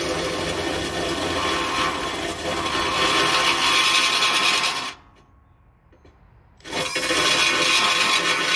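Milwaukee cordless drill running with a red rotary attachment pressed into the mower's plastic hood, cutting it away. It stops about five seconds in and starts again under two seconds later.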